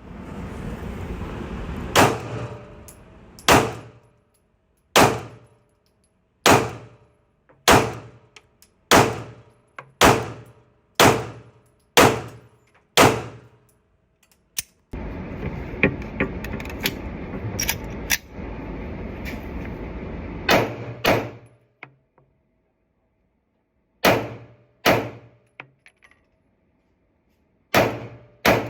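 A Glock 48 9 mm pistol firing single shots at a slow, steady pace, roughly one a second, about twenty in all. Near the middle and end there are short breaks of a couple of seconds.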